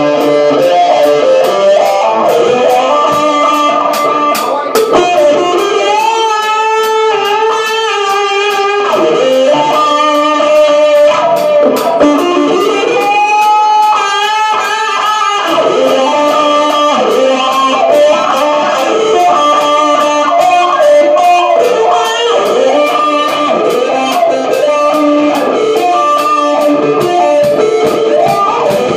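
Live band playing instrumental rock: an electric guitar plays lead lines over a drum kit keeping a steady beat on the cymbals. About 6 and 13 seconds in the guitar holds long, wavering bent notes.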